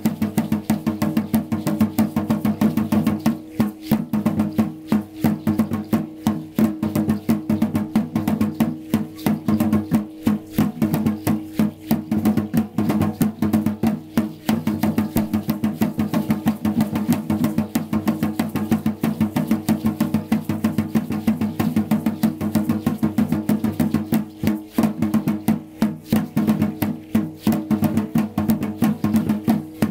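Fast, steady drumming on a large upright drum for Aztec-style (Mexica) ceremonial dance, with a clattering percussive layer over the beat.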